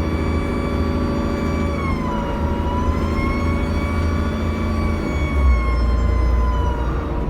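Turbocharger whine from a Dennis Trident double-decker bus under way: a high, steady whine that dips in pitch about two seconds in, climbs back, and falls away near the end, over the low rumble of the diesel engine.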